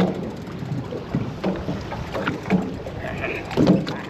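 Sound aboard a fishing boat on open water: wind on the microphone and water noise, with irregular knocks and splashes.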